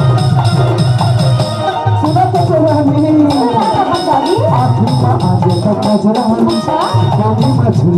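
Live Chhattisgarhi folk band playing an instrumental passage: a quick, even beat of about four strokes a second on dholak and percussion, with a keyboard melody that slides up and down in pitch coming in about two seconds in.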